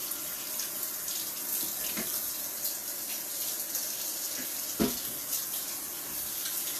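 Kitchen faucet running steadily into the sink while hands are washed under it. A single sharp knock sounds about five seconds in.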